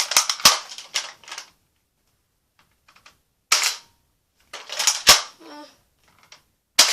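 Nerf Strongarm toy dart blaster being cocked and fired: groups of plastic clacks and sharp snaps, the loudest about half a second in and again about five seconds in, with short gaps between.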